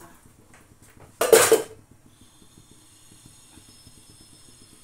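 A short metal clatter of a kitchen utensil against a pot about a second in, the loudest sound, over a faint rapid low ticking from an aluminium pot of spiced water and rice on the boil.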